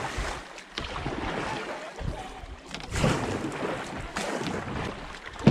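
Canoe paddles stroking and splashing through the river water, with wind buffeting the microphone.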